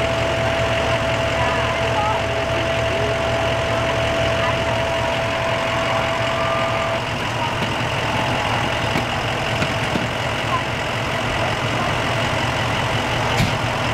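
A fire engine's diesel engine idling steadily, with a thin steady whine that stops about halfway through. Faint voices murmur underneath.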